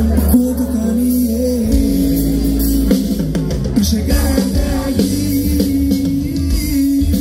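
Live band music with a man singing into a microphone over heavy bass and drums.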